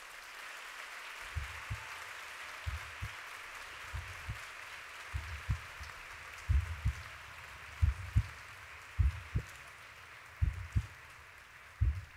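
A heartbeat pulse: soft, low double thumps, lub-dub, about once every 1.3 seconds, getting louder. Under it runs a steady hiss of audience applause.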